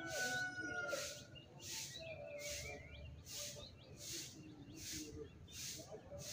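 The tail of a green junglefowl's call trails off in the first second, followed by a few softer, lower calls. Behind it, a rhythmic high-pitched pulsing repeats about every 0.7 seconds.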